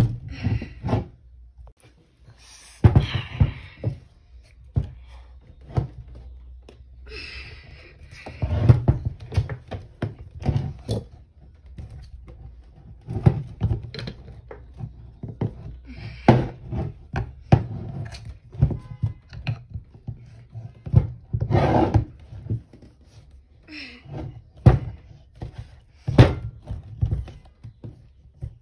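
A screwdriver prying at the plastic hub cover of a hoverboard wheel, making irregular knocks, thunks and short scrapes as the cover is forced, with the wheel bumping on a wooden table.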